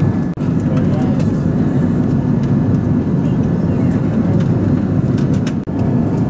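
Steady cabin noise of an Airbus A330-300 in flight, heard from inside the cabin: a loud, even low roar of engines and airflow. It dips briefly twice, and a few faint clicks sit on top.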